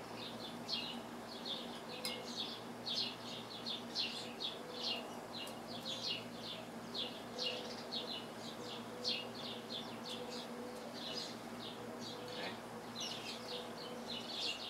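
A bird chirping over and over, short high chirps at two or three a second, over a faint steady hum.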